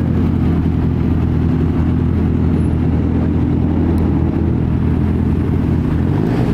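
Car engine running at low, steady revs close by, its exhaust note holding an even pitch throughout.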